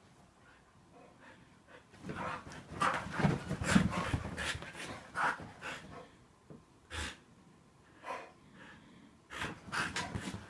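A pit bull and a husky play-fighting, breathing hard and panting in short irregular bursts as they mouth at each other. Quiet for about the first two seconds, then the bursts come thick for a few seconds, thin out, and pick up again near the end.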